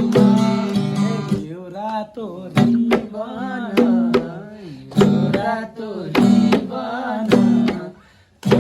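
Background music: a song with a singing voice over plucked strings and hand drums, briefly dropping away near the end.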